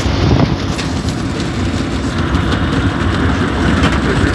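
Light propeller aircraft's piston engine running steadily, heard from inside the cockpit.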